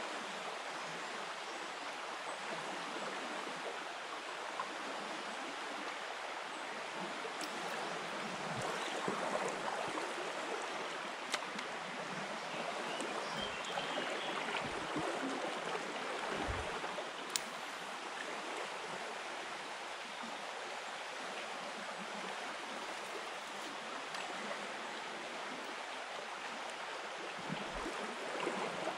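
Shallow river flowing over a stony bed: a steady rush of water, with a few small clicks and brief low knocks in the middle.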